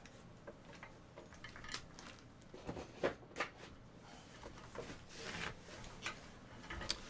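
Trading cards being handled and set down on a table: faint, scattered clicks and taps.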